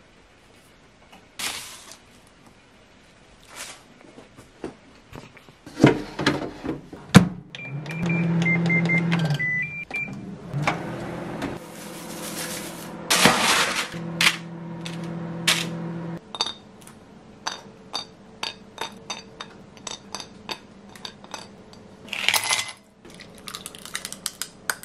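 A few clicks and knocks, then an electric oven's control panel beeps several times as its fan starts a steady hum, which cuts off suddenly about eight seconds later. Light ticks and clinks follow, and milk is poured into a glass near the end.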